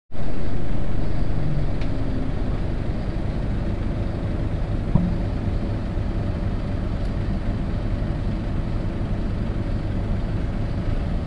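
Steady low rumble of a road vehicle in motion, heard from inside its cabin: engine and tyre noise in traffic, with a small click about five seconds in.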